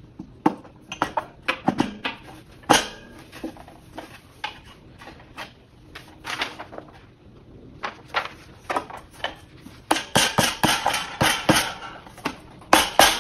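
Irregular knocks and clacks of end table parts being fitted together and banged into place by hand, coming quicker and louder in the last few seconds.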